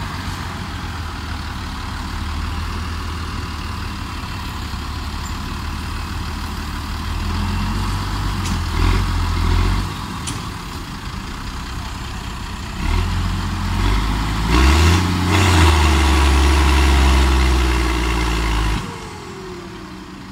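Deutz-Fahr AgroSun 120 tractor engine with a straight-through exhaust, working hard to drag two trailers out of soft ground. The revs climb about eight seconds in and fall back, then climb again for a longer and louder pull from about thirteen seconds in, before the engine drops back near the end.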